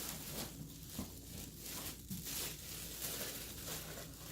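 Rustling and handling noise of packaging and parts, in a series of short irregular scrapes and crinkles.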